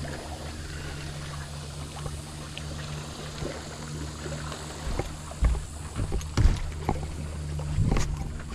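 Steady low hum of a small boat's motor running, with several sharp thumps in the second half.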